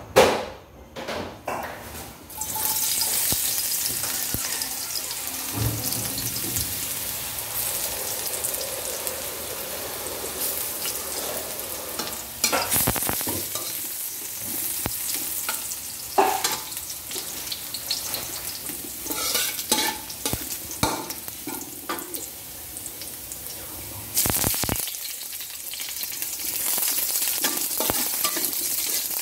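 Minced garlic frying in hot oil in a metal wok: a steady sizzle that starts about two seconds in, with a spatula scraping and stirring against the wok now and then. About three-quarters of the way through, sliced onion goes in and the sizzle grows louder.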